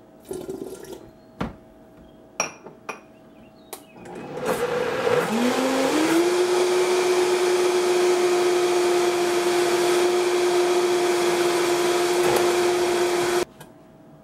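A Vitamix 5200 blender: a few knocks and clicks first, then about four seconds in the motor starts. Its whine rises in pitch as it spins up, then holds steady while it blends a thin liquid batter, and it cuts off suddenly about a second before the end.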